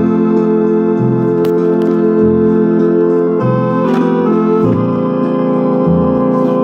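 Organ music playing from an 8-track tape through the Elgin player's speakers: held organ chords over a bass note that changes about once a second.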